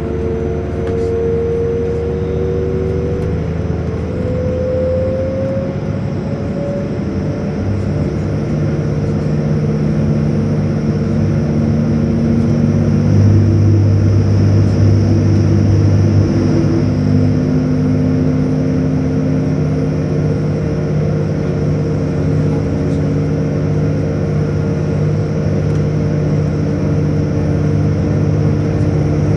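Interior of a Class 180 diesel multiple unit under way: the underfloor diesel engines and transmission run with a constant rumble of wheels on rail. Over the first several seconds a whine climbs in pitch as the train gathers speed. About eight seconds in it gives way to a deeper, steadier note.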